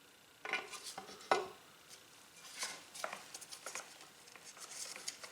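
Metal parts of a Shopsmith Jigsaw 610 drive clinking and scraping against each other as the shaft and its bronze collar are fitted back together, with one sharper clink a little over a second in.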